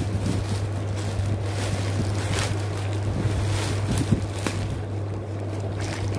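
Plastic packaging rustling and crinkling: a courier polybag and a clear plastic wrapper being pulled apart and handled, over a steady low hum.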